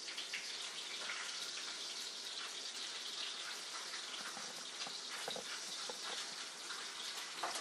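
Bacon sizzling in a frying pan: a steady hiss with small pops scattered through it.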